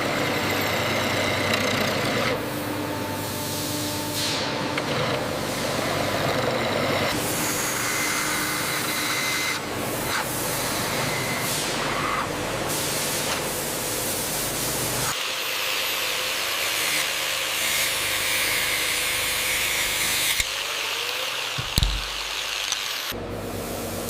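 Factory machinery noise: a steady hissing, running din with faint humming tones. It changes abruptly every few seconds, with a short low thump near the end.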